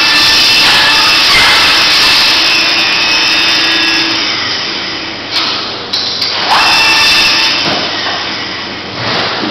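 Power dehiding equipment running with a steady whine and hiss; about four seconds in the high hiss stops and the sound goes on in short spurts.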